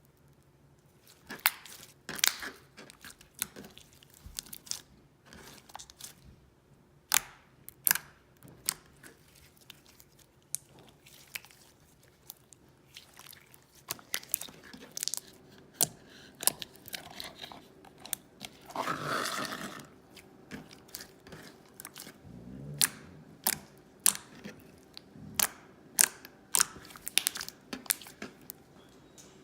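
Slime being pressed and squished by hand, giving sharp, irregular clicking pops and crackles, with a longer crackling squish about 19 seconds in.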